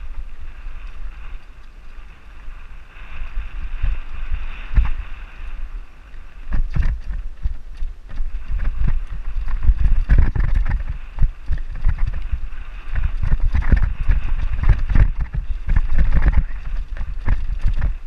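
Mountain bike descending a dirt singletrack: the bike knocks and rattles over bumps and roots, thicker and louder from about six seconds in, over a rumble of tyres on dirt and a steady hiss.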